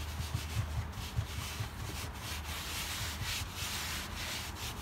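Hands rubbing and pressing four-way stretch carpet over a van's wheel arch, stretching it into shape: a run of uneven scratchy strokes of palms on fabric.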